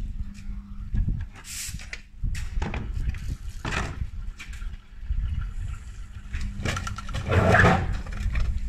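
Gorenje washing machine spinning badly off balance: a steady motor hum under a heavy, irregular rumble, with repeated knocks and bangs from the drum and cabinet. The loudest bang comes near the end.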